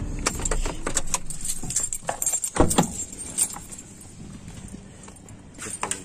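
Handling noise of a person climbing out of a car: a run of small clicks, rattles and rustles, with a sharp knock about two and a half seconds in, over a low car rumble that fades after the first two seconds.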